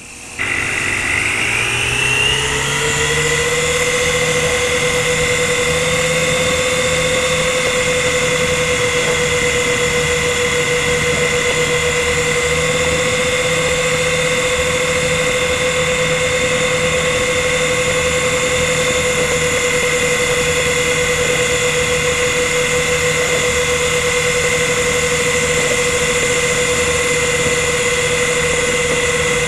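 Motors and rotors of an S107c toy helicopter spinning up from silence with a rising whine over the first few seconds, then running at a steady whine in flight.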